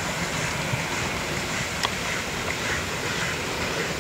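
Steam-hauled passenger train behind a Pt47 2-8-2 locomotive rolling away: a steady rushing of wheels, steam and exhaust, with a single sharp click a little under two seconds in.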